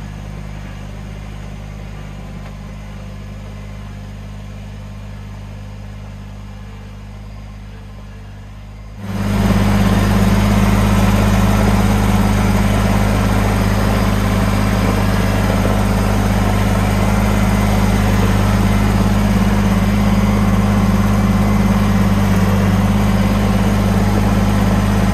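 Kubota BX23S compact tractor's three-cylinder diesel engine running steadily as the tractor drives. About nine seconds in, the engine suddenly becomes much louder and fuller, heard up close from the operator's seat.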